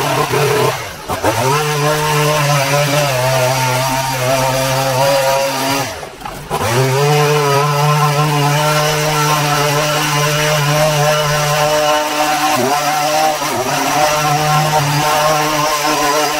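Small petrol engine of a shoulder-slung grass trimmer running at high revs as its head works weeds out of brick paving. The throttle is let off twice, about a second in and about six seconds in, the revs dropping away and then climbing straight back up.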